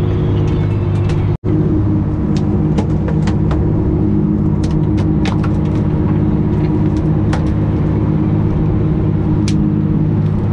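Fishing boat's engine running steadily, a loud, even drone with scattered small clicks and taps over it, broken by a split-second dropout about a second and a half in.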